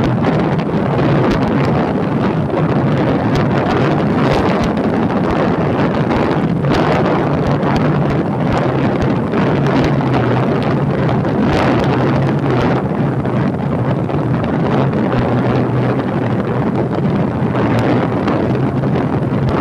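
Wind rushing over the microphone of a phone on a moving motorcycle, with the motorcycle's engine running steadily beneath it.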